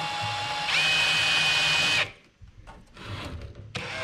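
Cordless drill with a number 30 bit drilling out a 1/8-inch solid aircraft rivet from the shop-head side. The motor whines, jumps to a higher pitch under more trigger a little under a second in, stops at about two seconds, then spins up again near the end. No click of the rivet shank cracking is heard.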